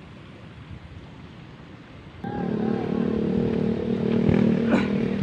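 A small engine suddenly starts up about two seconds in and runs loud and steady at an even pitch, with a sharp click near the end.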